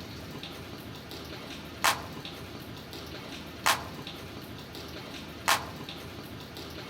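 Steady rain hiss with three sharp single drips landing at an even pace, about one every two seconds.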